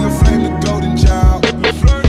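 Background music with a steady beat of deep bass drum and sharp drum hits.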